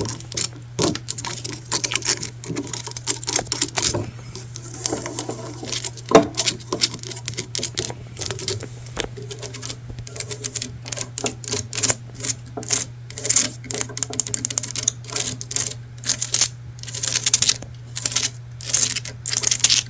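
Fast, irregular hand tapping and clicking on hard objects, over a steady low hum.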